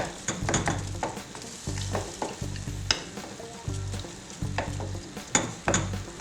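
A spoon stirring tomato paste and spices frying in a pan, with sizzling and irregular sharp clinks and scrapes of the utensil against the pan.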